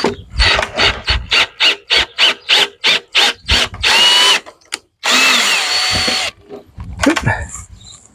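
Cordless drill/driver driving screws into a wooden chair joint, the trigger pulsed in short bursts about four a second, then a steady run of about a second and a last short burst near the end.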